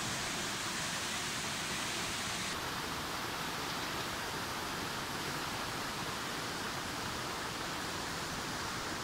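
Tall waterfall pouring down a rock face onto boulders, a steady rush of falling water; the high hiss eases slightly a little over two seconds in.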